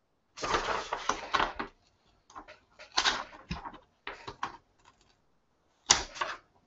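Thin plastic protective film being peeled off a laptop and handled, crackling in several separate bursts, the sharpest and loudest near the end.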